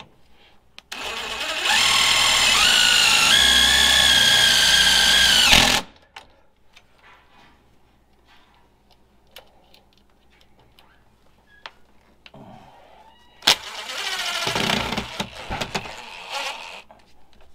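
Power drill driving self-drilling screws: a long run of the motor about a second in, its whine stepping up in pitch twice before it cuts off sharply, then a few light handling clicks. Near the end a sharp click starts a second, shorter run of the drill.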